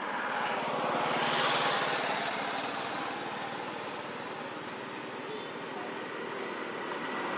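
Motor vehicle passing, its engine and road noise growing louder for the first second or two, then fading, with another vehicle approaching near the end. A few faint short chirps sound over it.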